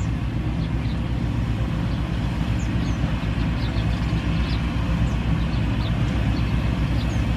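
Combine harvester's diesel engine running steadily under harvesting load, a deep even throb, with faint short high chirps over it.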